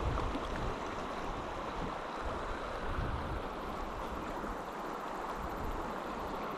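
Steady rush of river water flowing over rocks, with an uneven low rumble of wind on the microphone.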